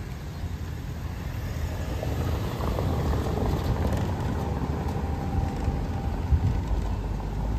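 A silver hatchback car driving past close by and on away down a cobblestone street, its engine and tyres making a steady low rumble on the paving stones. The rumble grows louder from about a second in and holds.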